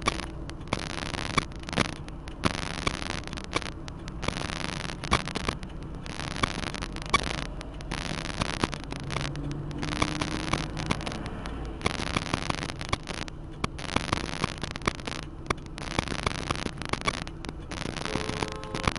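Steady crackling hiss with many sharp clicks and repeated brief dropouts, the noisy audio of a security camera's microphone.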